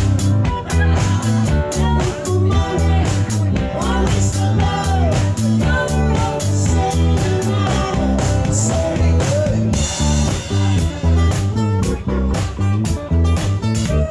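Live rock band playing: an electric guitar lead with bending notes over bass, acoustic guitar and a steady drum beat, with a cymbal crash about ten seconds in.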